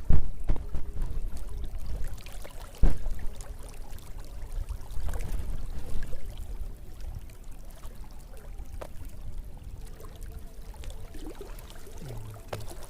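Water splashing and sloshing around the fisherman, with two sharp knocks, one at the start and one about three seconds in.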